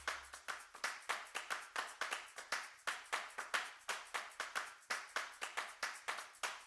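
Background music in a sparse stretch without bass: a steady, quick beat of clap-like percussion hits, about three to four a second.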